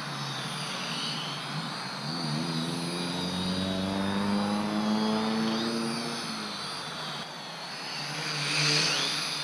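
Helicute H818HW toy quadcopter's four small electric motors and propellers buzzing in flight. A pitched hum rises and falls in pitch over a few seconds. A high whine swells loudest near the end as the quad flies in close.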